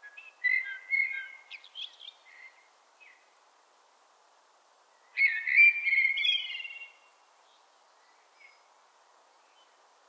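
Common blackbird singing: two warbled phrases of low fluting notes mixed with higher twittering, one at the start and a louder one about five seconds in.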